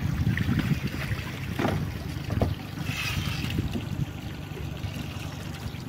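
Wind rumbling on the microphone over water sloshing around a small fishing boat, with a few light knocks.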